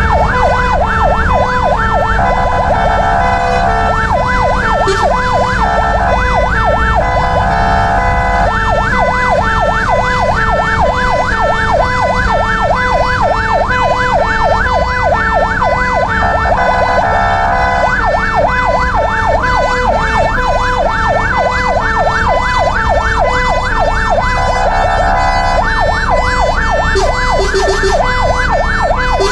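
Fire engine's electronic siren heard from inside the cab, sounding a fast yelp without a break, switching several times to an even quicker warble, over the steady rumble of the truck's engine.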